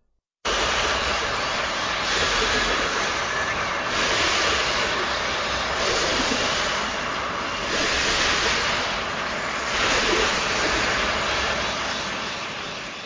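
Mothra film sound effect: a steady rushing, wind-like gale noise that starts abruptly, swells and eases about every two seconds, and cuts off at the end.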